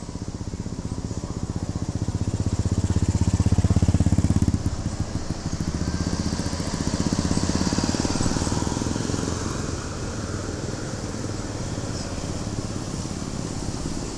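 Diesel engine of a large tour bus running as the bus moves past close by, loudest about three to four seconds in and then easing off, with a hiss for a few seconds in the middle.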